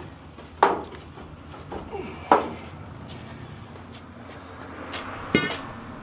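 A long steel digging bar clanking against the bent front sheet metal of a 1966 Ford F250 as it is pried and levered into shape: four sharp knocks spread out, the last one ringing briefly.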